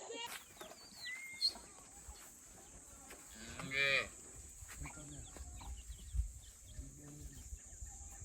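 A farm animal calling twice, in a moo-like tone: a long, loud call about three and a half seconds in and a fainter one near the end. Short bird chirps sound about a second in.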